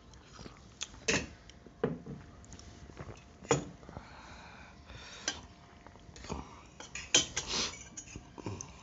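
Forks and spoons clinking and scraping against steel plates, with drinking glasses set down on a wooden table: about half a dozen sharp clinks and knocks at uneven intervals.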